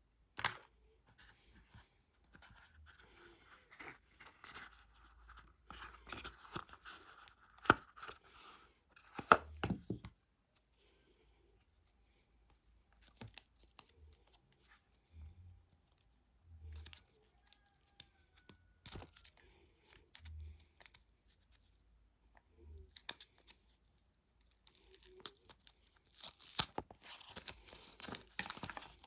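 Packaging being handled and opened: scattered sharp clicks and rustling, with a louder run of tearing and crinkling near the end.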